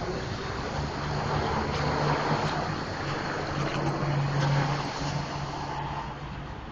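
Honda GL1800 Gold Wing's flat-six engine running on the stand: a steady exhaust hum that grows a little louder through the middle and eases off near the end.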